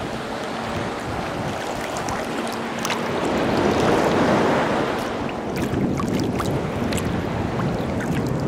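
Shallow seawater sloshing and lapping close by, swelling louder for a couple of seconds around the middle as a wave washes through, then a run of small sharp splashes and ticks.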